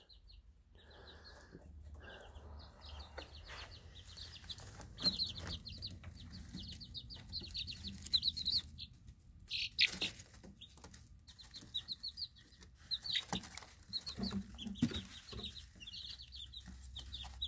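A group of three-week-old Easter Egger chicks peeping, with quick runs of short high chirps on and off and a few scattered light taps.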